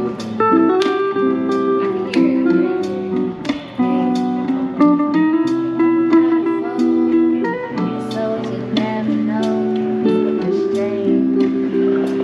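Guitar playing a melodic passage of plucked notes and chords, each note ringing on.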